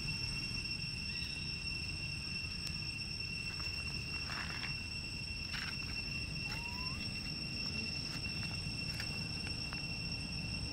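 Steady high-pitched insect drone, one unbroken whine with an overtone, over a low rumble. A short rising chirp cuts in about two-thirds of the way through.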